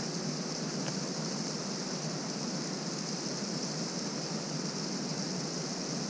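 Steady rushing of a waterfall: an even, unbroken hiss of falling water.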